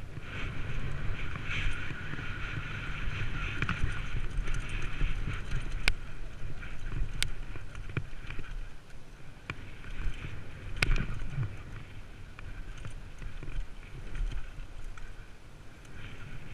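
Downhill mountain bike descending a rocky dirt trail: a steady rumble of tyres over dirt and stones with wind on the camera microphone, broken by a few sharp knocks as the bike hits rocks.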